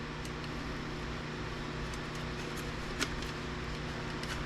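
Steady low background hum, with one faint click about three seconds in.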